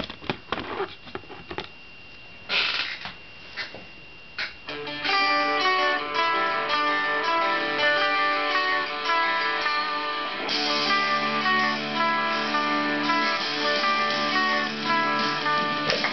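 A few knocks and handling rustles, then from about five seconds in an electric guitar playing a picked punk-rock riff of changing single notes. From about ten seconds in it grows fuller, with held low notes and brighter strummed chords.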